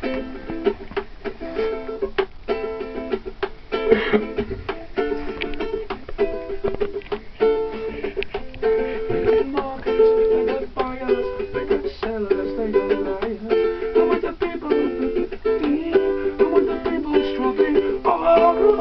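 Background music: a plucked-string instrument such as a ukulele playing a continuous tune, with quickly picked notes.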